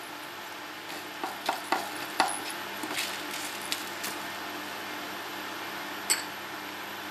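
Spatula spreading coriander seeds and dried red chillies around a flat pan during dry roasting: a run of light clicks and taps about one to four seconds in, and one more near six seconds, over a steady low hum.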